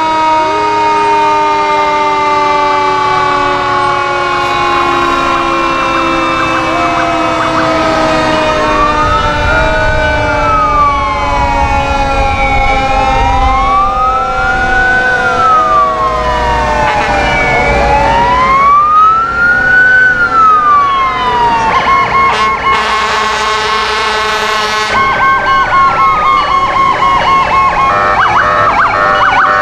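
Several fire engine sirens sounding at once as the trucks pass. A long siren tone winds slowly down throughout, while another siren wails, rising and falling about every five seconds. Near the end a fast pulsing yelp takes over.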